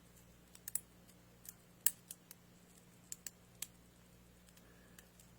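Faint, irregular metallic clicks, about ten scattered through, of a paper clip working the pin tumblers of a lock while a bobby pin holds tension on the plug.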